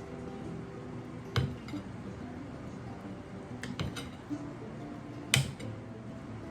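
Dishes and cutlery clinking, with three sharp knocks: one about a second and a half in, one near four seconds and one past five seconds, over soft background music.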